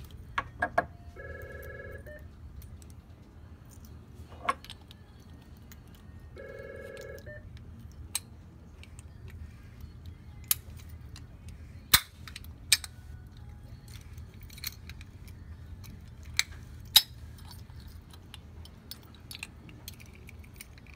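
Sharp metal clicks and clinks from a vending machine T-handle and its plug lock cylinder being handled, with a key and a thin pin tool worked in the lock. The clicks come at irregular intervals, a few of them loud. Twice, about a second in and again about six and a half seconds in, a short electronic ring tone sounds in the background.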